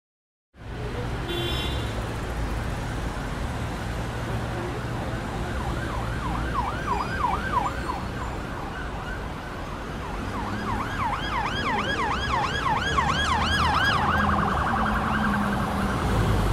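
Emergency-vehicle siren in a fast yelp, rising and falling about four times a second over a steady low traffic rumble. It comes in about six seconds in, drops out briefly, returns, then turns to a quicker warble near the end.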